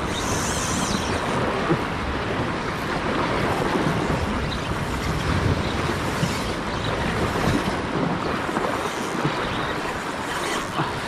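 Steady wash of sea waves and surf, with wind buffeting the microphone.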